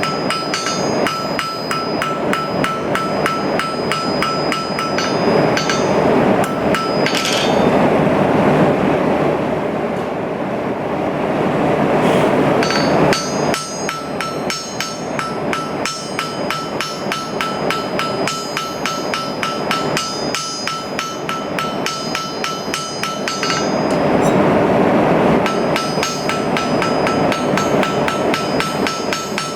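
Hand hammer striking hot stainless steel on an anvil in quick, even blows, with the anvil ringing after each strike. The hammering stops twice, about a third of the way in and again near the end, and a steady rushing noise comes up in its place.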